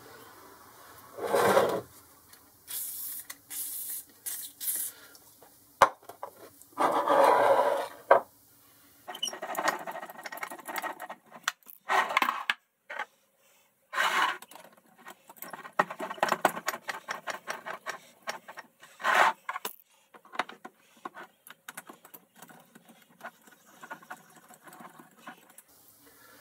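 Steel jaws being fitted back into a four-jaw lathe chuck and run in on their new screws: irregular metal-on-metal scraping and clicking, with a short silent break about 13 seconds in.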